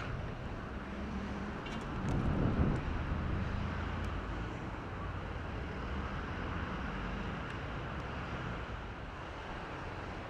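Outdoor ambience: wind buffeting the microphone over a steady low hum, with a stronger gust about two seconds in.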